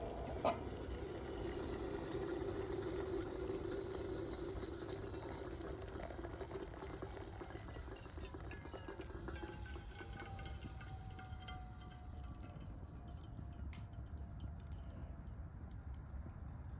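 Water simmering in a kettle over a wood fire: a steady hiss and low hum, with a sharp click about half a second in and small crackles throughout. A faint tone falling in pitch comes about ten seconds in.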